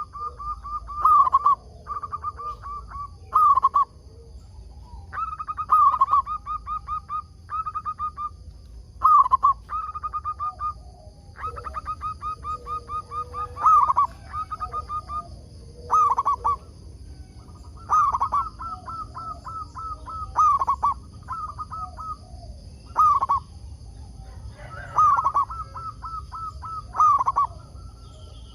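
Zebra doves (perkutut) cooing: phrase after phrase of rapid staccato notes, each phrase about a second long, with calls overlapping as birds answer one another.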